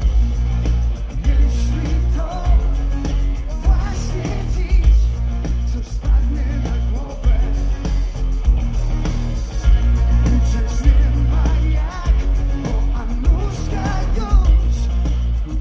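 A live band playing a pop-rock song through a concert sound system, with a male lead voice singing over electric guitar, keyboards and drums, and a heavy bass.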